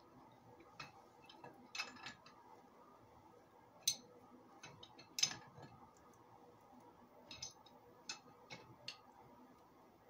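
Pipe wrench turning a galvanized steel pipe fitting: scattered metallic clicks and clinks as the jaws grip and shift on the pipe. The sharpest come about four and five seconds in.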